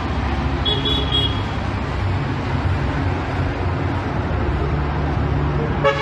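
Street traffic: a steady drone of motor vehicle engines, with a short high-pitched beep about a second in and a brief pitched toot near the end.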